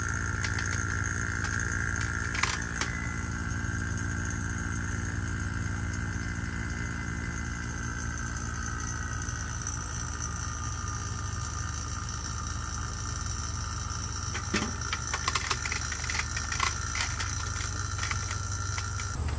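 Electric refrigeration vacuum pump running to evacuate a mini split's refrigerant lines through a manifold gauge set: a steady hum with a high whine that slowly sinks in pitch. A few clicks and knocks near the end.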